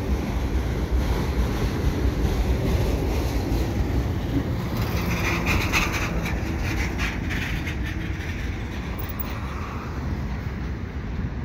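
Freight train of autorack cars rolling past below, a steady rumble of wheels on the rails. About halfway through a school bus drives by close, briefly adding a brighter rush of noise.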